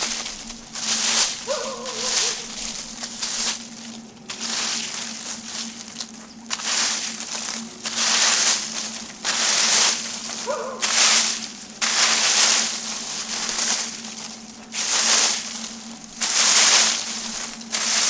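Wire fan rake scraping and dragging through dry fallen leaves and dead grass in repeated strokes, about one a second.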